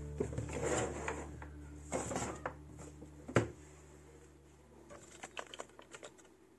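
Handling noise of small items on a desk: a run of knocks and rustles as gear is moved and set down, the loudest knock about three and a half seconds in, then a few faint ticks, over a low steady hum.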